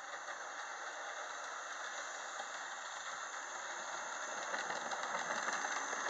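Model train running on its track: a steady whirring rattle from the locomotive's electric motor and the wheels on the rails, growing louder about four and a half seconds in as the train comes close.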